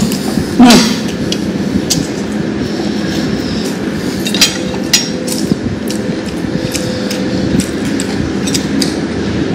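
Scattered sharp clicks of eating by hand over a steady rumbling background noise, with a short vocal sound just under a second in.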